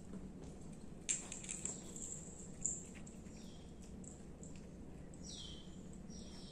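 Small bell on a cat's collar jingling as the cat turns from its food and walks off, loudest about a second in. Then a bird chirps a few times, each a short high call falling in pitch.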